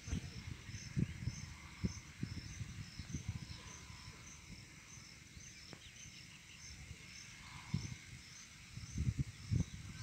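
An insect chirping in a steady, high-pitched rhythm, about two chirps a second, over irregular low thumps on the microphone.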